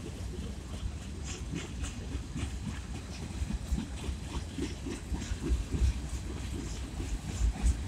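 Freight cars of a passing train rolling along the rails: a steady low rumble of steel wheels, with irregular clicks and clanks from the wheels and running gear.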